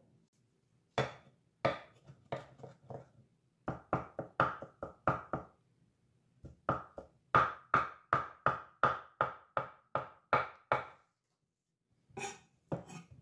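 Sharp kitchen knife chopping raw tuna on a wooden cutting board: quick, evenly spaced strokes, about three a second, in several runs broken by short pauses, cutting the fish into small dice for tartare.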